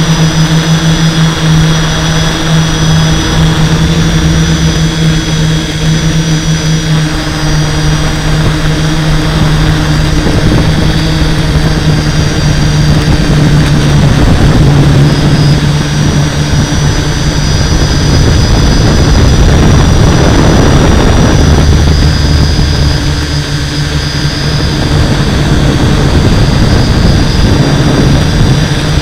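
Hexacopter's six electric motors and 11x5.5 propellers running loud and steady in flight, heard close up from the onboard camera. The pitch and level shift slightly as the throttle changes.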